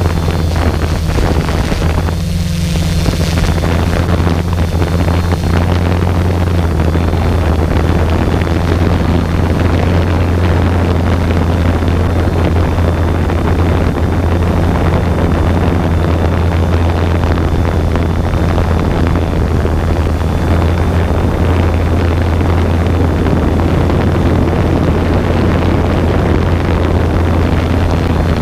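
A multirotor drone's electric motors and propellers running steadily, heard from the camera mounted on it: an unchanging low hum with a thin high whine above it, mixed with wind rushing on the microphone.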